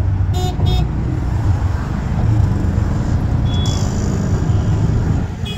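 Steady low rumble of a moving vehicle on the road, with two short beeps of a vehicle horn about half a second in.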